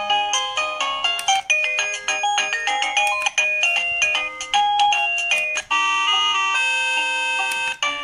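Coolqiya wireless doorbell receiver playing short electronic chime tunes one after another. Each tune cuts off abruptly and the next begins as the ringtone-select button is pressed to step through the melodies.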